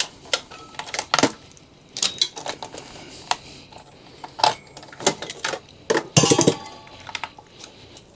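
Irregular metallic clicks and clinks from a desktop PC's steel case and parts being handled during dismantling, with a louder burst of clattering and brief metallic ringing about six seconds in.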